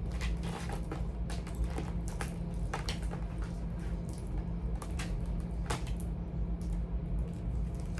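Charging cables and plugs being handled and sorted by hand: irregular light clicks, taps and rustles, over a steady low hum.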